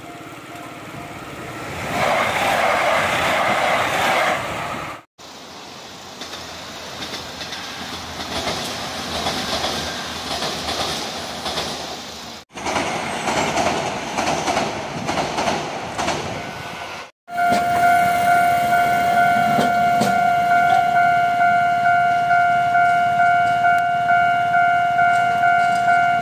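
Trains running past over the rails in a series of short clips. Near the end, a steady ringing warning tone pulses about once a second, like a railway crossing signal.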